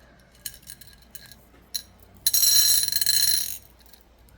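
Small stone beads clicking against each other a few times, then a loud rattle of beads tumbling together for just over a second.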